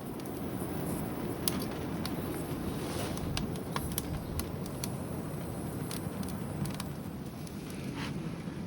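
Wood fire crackling: scattered sharp snaps and clicks over a steady low rushing noise.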